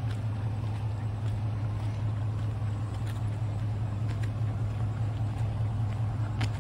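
Ford F-350 Super Duty pickup engine idling with a steady low hum, with a few faint ticks over it.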